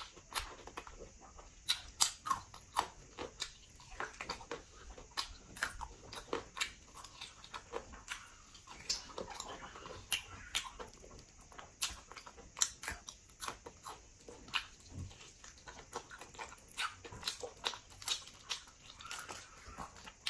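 A person chewing and biting pork leg: irregular mouth clicks and smacks, several a second.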